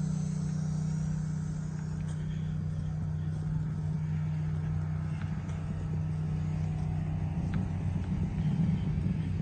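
1999 GMC Sierra pickup's engine idling steadily, a low even rumble that grows a little louder near the end.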